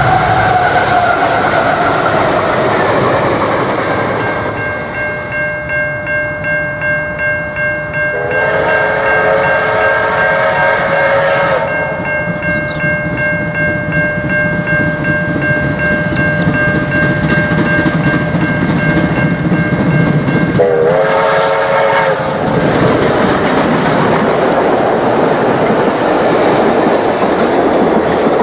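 A diesel-hauled container freight train passing, its tone falling in pitch. Then Victorian Railways D3 class steam locomotive D3 639 approaching with its exhaust beating about twice a second, sounding its whistle in one long blast and a shorter one, then running past loudly.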